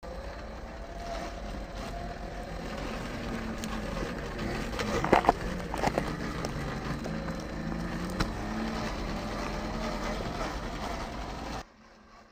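Electric motor and drivetrain of a 1/10-scale RC rock crawler whining as it crawls close by, the pitch wavering with the throttle. Leaves and twigs crunch and snap under its tyres, loudest about five to six seconds in. The sound cuts off shortly before the end.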